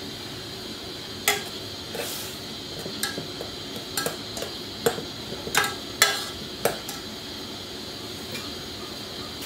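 A ladle knocking and scraping against a metal pot while stirring boiling broth with lemongrass and ginger: a run of uneven clinks over about six seconds, over a steady hiss.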